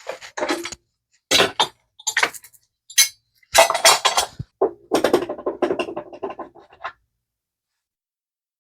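Small metal parts clinking and rattling as they are handled, a string of short knocks and clatters that stops about seven seconds in.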